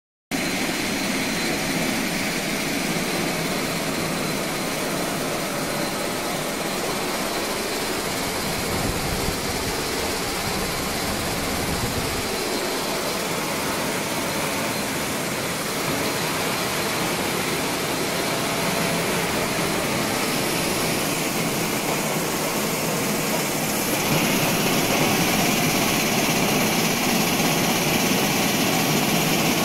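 Buckwheat disc-hulling machine and its vibrating sieve running: a steady, dense mechanical hiss, a little louder in the last few seconds.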